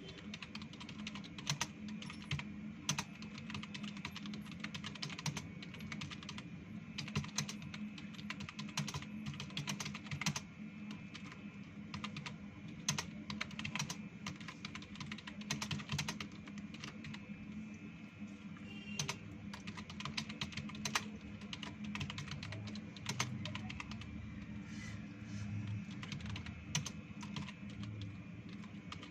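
Computer keyboard typed on fast and continuously, a dense irregular clatter of key presses, as in a timed typing speed test.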